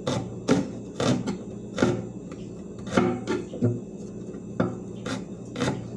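Kitchen knife chopping an onion on a wooden chopping board: sharp knocks of the blade hitting the board, about one to two a second at an uneven pace.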